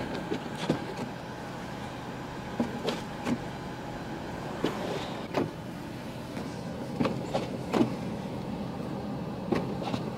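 Steady vehicle road and engine hum heard from inside a car, with scattered short clicks and knocks throughout.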